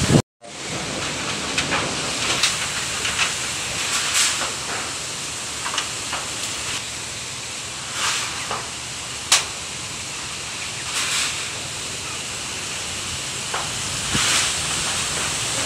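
Strong storm wind rushing through coconut palms, banana plants and trees: a steady hiss of thrashing leaves and wind, with scattered short crackles and clatters.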